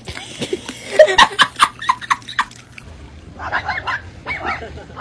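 Dogs barking: a quick series of short, sharp barks in the first half, then from about three seconds in a run of high, wavering yips.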